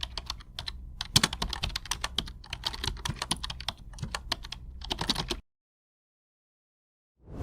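Rapid, irregular clicking of computer keyboard typing, which stops abruptly about five and a half seconds in. After a short dead silence, a whoosh begins right at the end.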